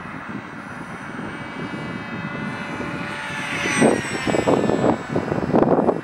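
Electric motor and propeller of a Pirawing RC flying wing whining as it flies past, growing louder and then dropping in pitch about four seconds in as it goes by overhead. Uneven rumbling on the microphone follows near the end.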